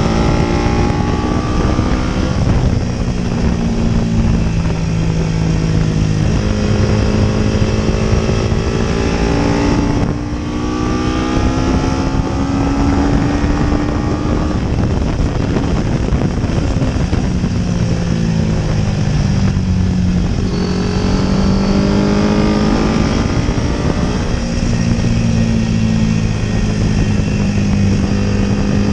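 Paton 500 GP racing motorcycle engine at race pace, heard onboard: the note climbs again and again through the revs and drops back at each gear change, falling lowest about ten and twenty seconds in when braking for corners. Steady wind rush runs under it.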